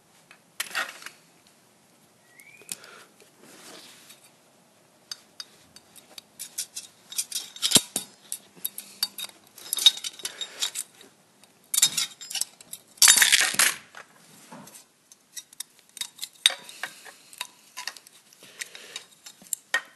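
Metal hand tool prying and scraping inside the cast aluminum housing of a satellite dish LNB, giving irregular clicks, clinks and short metal-on-metal scrapes, with a longer, louder scrape about thirteen seconds in.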